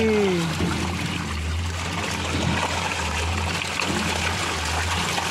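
Steady splashing and churning of water as a dense crowd of fish thrash at the surface.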